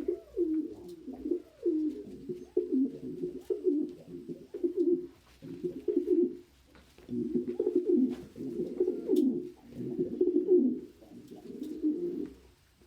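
Domestic pigeon cooing: a run of low, rolling coos in repeated phrases with short breaks, stopping near the end.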